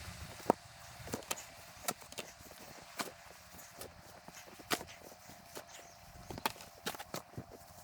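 Irregular sharp crunches and knocks of packed snow being worked, one or two a second, the loudest about half a second in. A faint steady hum runs underneath.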